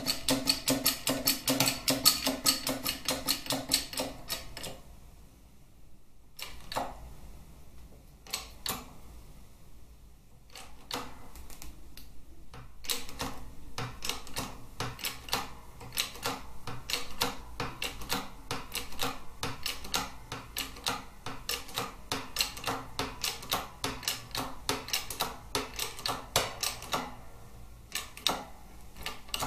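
Shop press being worked to push a main bearing out of a Harley-Davidson Twin Cam crankcase half: a rapid, even clicking of a few strokes a second from the press, which pauses twice and stops near the end.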